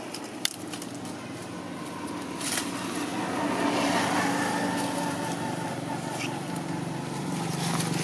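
A motor vehicle's engine running steadily, a low hum that grows louder about three seconds in and holds.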